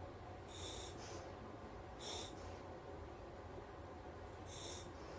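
Breaths drawn through a SMACO full-face dive mask's demand regulator on surface-supplied air: three short hissing gusts with a faint whistle, about two seconds apart.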